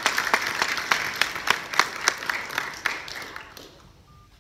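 Audience applauding, a mass of irregular hand claps that thins out and fades away after about three seconds.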